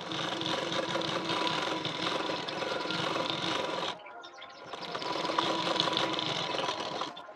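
Black straight-stitch domestic sewing machine running as it stitches a seam, in two steady runs: it stops briefly about four seconds in, then runs again until just before the end.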